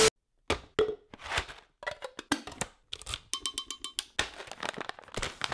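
Burr coffee grinder being handled, its grind-size dial turned by hand: a quick run of irregular clicks and small rattles, a few of them with a brief metallic ring.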